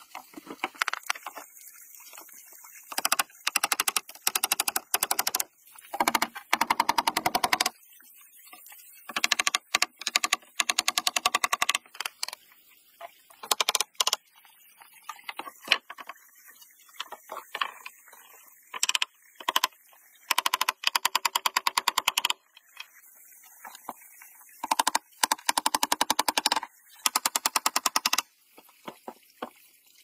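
Rapid runs of sharp knocks on wooden boards, like nails being hammered into the planks of a wooden bird house, coming in bursts of one to two seconds with short pauses between them.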